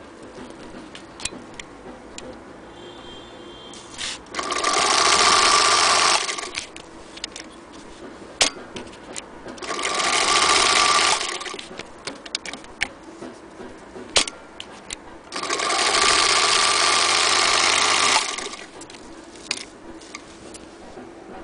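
Singer Featherweight 221 electric sewing machine running in three short bursts as it stitches fabric, each run a steady mechanical whir, with clicks and knocks from handling the fabric and machine in between.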